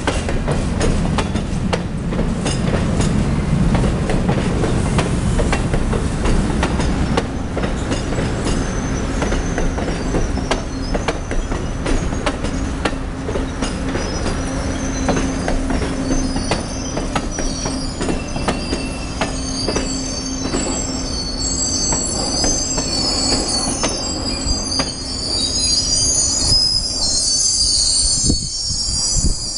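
Amtrak Silver Star passenger cars rolling slowly through a crossing, with a steady low rumble and wheels clicking over the rail joints. High-pitched wheel flange squeal sets in about a quarter of the way through and grows loudest near the end as the last car passes. The squeal comes from the train taking the curved turnout off the main line onto the wye.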